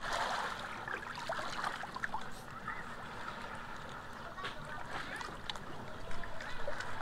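Shallow water lapping and trickling among rocks and pebbles, a steady wash with small scattered splashes and clicks.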